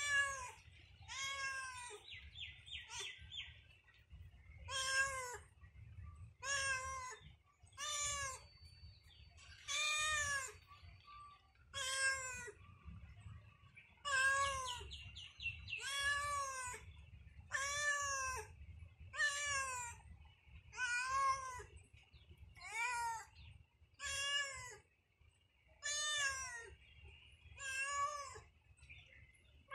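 A domestic cat meowing over and over, about one meow every one and a half seconds. Each call rises and then falls in pitch.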